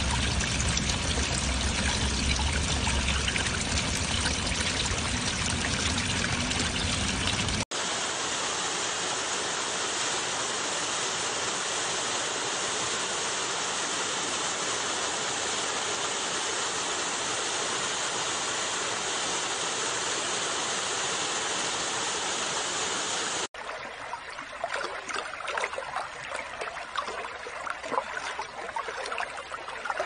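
Water running and falling in three sections joined by abrupt cuts. First a heavy pour splashing into a pool with a deep rumble, then a steady, even rush of water, and for the last several seconds a lighter, babbling flow of a small stream.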